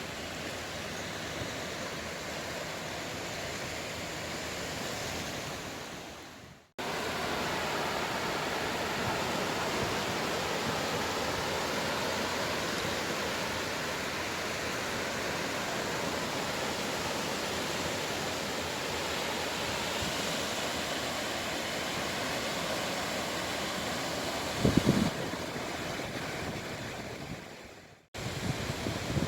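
Sea waves breaking and washing in a steady surf, fading out and cutting briefly twice. A short loud low thump about 25 seconds in.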